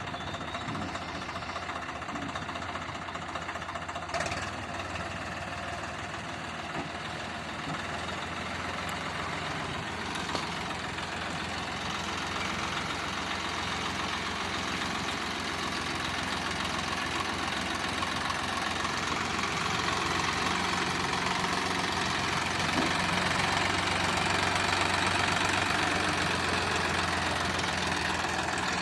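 Swaraj tractor's diesel engine running steadily with a knocking chug, slowly growing louder.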